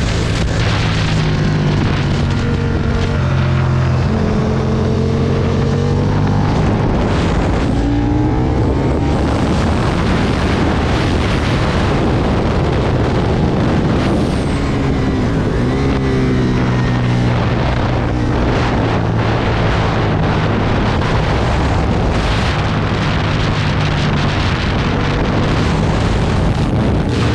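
Aprilia Tuono V2 motorcycle engine at speed on a racetrack, its revs climbing and falling again and again through gear changes and corners, over a steady rush of wind and road noise.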